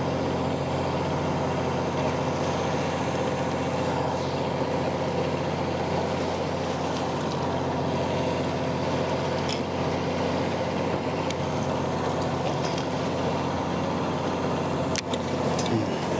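Steady droning hum of the fishing boat's motor running, with a few sharp clicks near the end.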